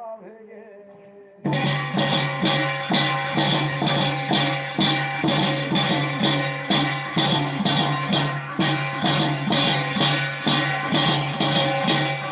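Background music with a rattling percussion beat, about three strokes a second, over steady held tones. It cuts in abruptly about a second and a half in.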